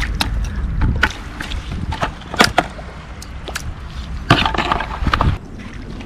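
Footsteps splashing through shallow water on wet sand: a few separate sharp splashes and clicks, a cluster of them near the end.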